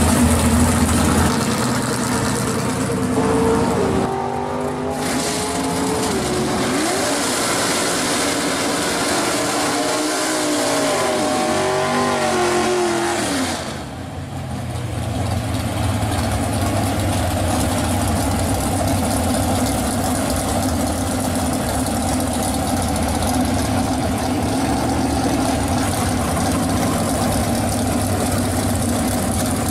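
Drag-racing muscle-car engines: the 1965 Pontiac GTO's engine running at first, then an engine revved up and down several times, and from about halfway a steady idle of the cars at the starting line.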